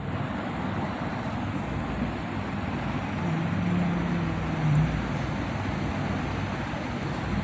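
Steady rushing background noise with no clear source, and a brief low steady hum starting about three seconds in.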